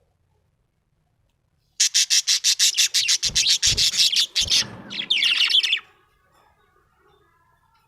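Budgerigar chirping: a fast run of short, high chirps, about eight a second, beginning about two seconds in, followed by a brief scratchy chattering phrase. A few low thumps come in among the chirps.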